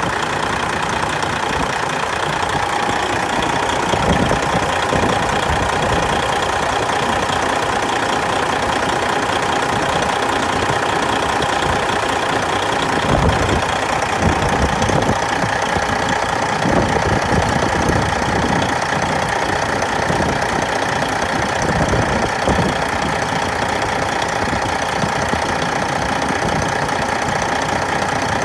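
Detroit Diesel Series 60 12.7-litre inline-six turbo diesel idling steadily in the truck, with a steady whine over the engine noise.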